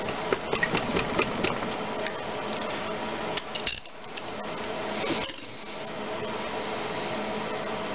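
Sharp metallic clicks and taps of a T-handle socket wrench on connecting-rod cap bolts, loosening them to remove the rod bearing cap after torquing for a Plastigauge clearance check. The clicks come in a quick run over the first second or so, with a few more later, over a steady background hum.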